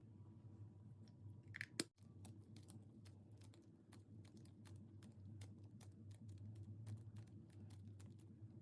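Slime being pressed and kneaded by hand, trapped air pockets popping in a fast run of small, sharp clicks, with one louder snap just before the clicking starts, over a faint steady low hum.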